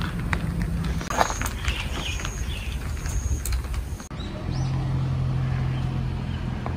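Outdoor street ambience: a steady low rumble with scattered light clicks and a few faint bird chirps. After a cut about four seconds in, a steady low vehicle hum.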